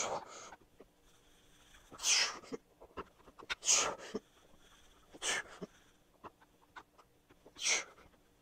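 A man exhaling hard through the mouth with each rep of a one-arm incline dumbbell press: five short, sharp breaths about one and a half to two seconds apart.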